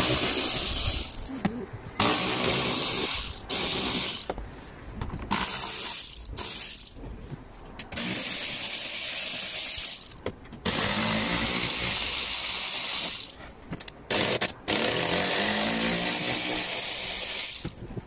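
Cordless power tool running in about seven short runs of one to three seconds each, backing out the T25 screws and 13 mm bolts that hold a car's plastic underbody cover.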